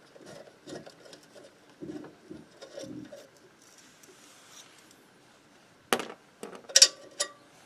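A moped's coil spring being worked off by hand: small metal clicks and scrapes. About six seconds in come a few sharp metal clinks that ring briefly, as loose metal parts are set down.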